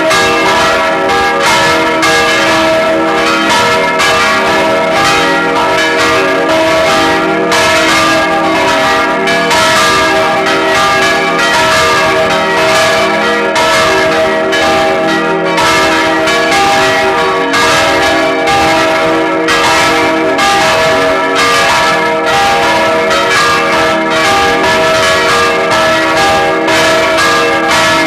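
Full peal of four church bells ringing together: three baroque bronze bells cast by Anselm Speck of Heidelberg in 1788 and a smaller one from 1988. Their strokes fall thick and overlapping, with the bells' tones humming on steadily beneath.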